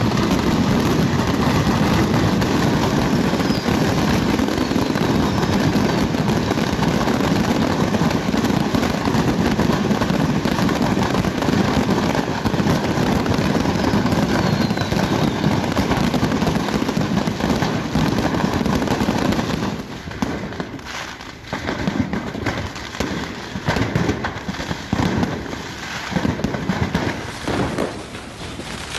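A burning stock of fireworks going off uncontrolled: a dense, continuous barrage of bangs and crackling, with a few faint whistles from rockets. About two-thirds of the way through it thins out into separate bangs with short gaps between them.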